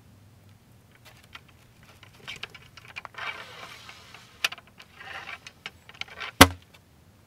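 A cleaning rod with a patch sliding and scraping in the bore of an 1853 Enfield rifle-musket, with light clicks of the rod at the muzzle. One sharp knock near the end.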